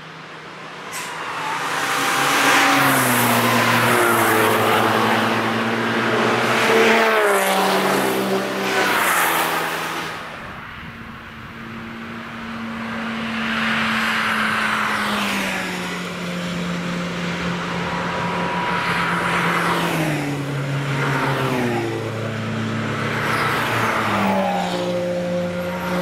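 Several cars driving past at speed one after another, engines under hard acceleration. Their pitch climbs and steps through gear changes, then drops as each car goes by. Loudest about three and seven seconds in, with a lull about eleven seconds in before the next cars arrive.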